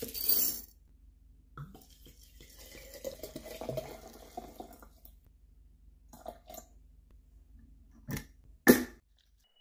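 Cacao nibs rattle into a glass jar. Then vodka is poured from a glass bottle over them, splashing and gurgling for a few seconds. Near the end the glass lid is set onto the jar with two sharp clinks, the second the loudest.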